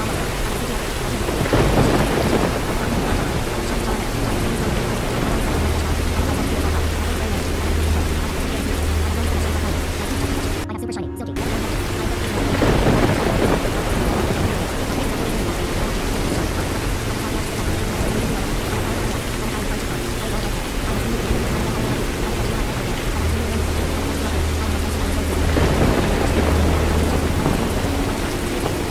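Thunderstorm ambience: steady heavy rain with low rolling thunder that swells several times. Near the middle the rain hiss drops out for about half a second.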